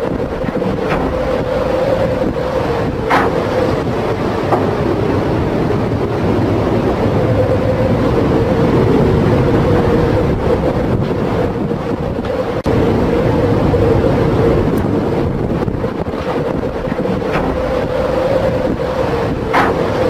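Storm wind and heavy seas heard from a ship's deck: a loud steady rushing and rumbling with a constant drone under it, broken by a few sharp knocks as waves break over the bow.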